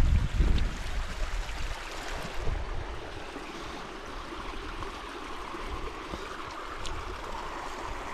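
A stream running steadily, with a low rumble in the first second or so.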